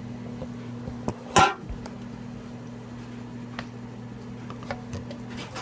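Microwave oven running with a steady low hum, which stops shortly before the end. A sharp clack sounds about a second and a half in.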